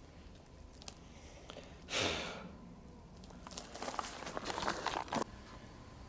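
Quiet footsteps crunching and rustling on the forest floor, in a run of irregular steps that stops abruptly just past five seconds in, after a single short swish about two seconds in.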